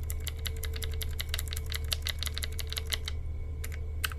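Blue mechanical key switches clicking rapidly as they are pressed over and over, many clicks a second, with a short pause a little after three seconds in.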